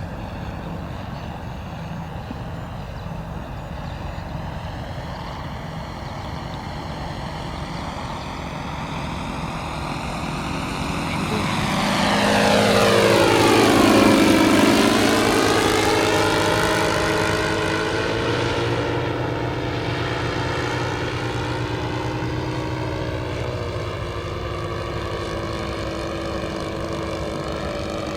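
Radio-controlled Cessna 337 Skymaster model aircraft flying past. Its engine and propeller note grows louder to a peak about halfway through, drops in pitch as it passes, then fades slowly.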